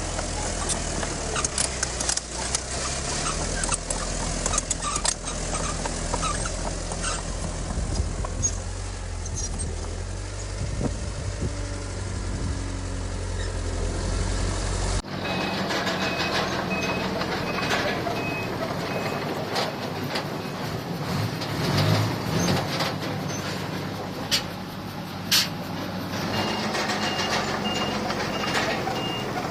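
Heavy diesel earthmoving machinery running with a low rumble and repeated metallic clanks. After a cut, a dump truck's reversing alarm sounds in two runs of steady beeps over the engine noise.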